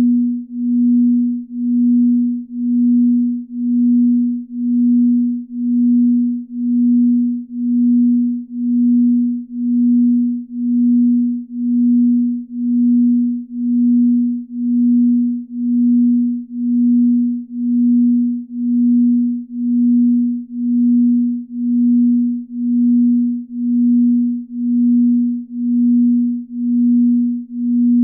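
Binaural-beat sleep tone: a single low pure tone that swells and fades steadily in loudness about once a second.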